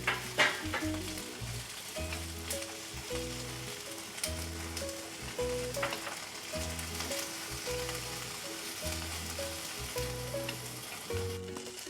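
Food sizzling as it fries in a pan, with a few short scrapes or clinks of a utensil, under light background music.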